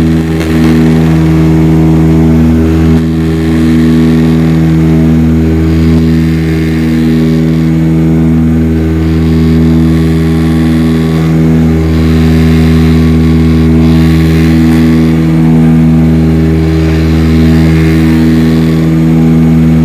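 Turboprop airliner's engines and propellers droning loudly in the cabin during the climb after takeoff: a steady hum of several fixed low tones with a slow waver in loudness.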